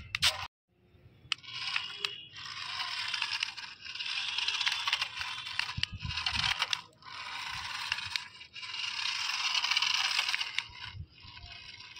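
Small electric motor and gearbox of a toy remote-control car whirring in repeated bursts of one to two seconds as it is driven in short runs. The bursts come after a brief silence near the start.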